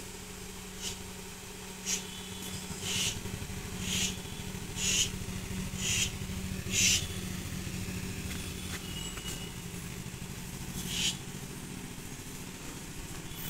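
A snake hissing in short bursts about once a second, seven in a row, then once more after a pause, over a steady low mechanical hum.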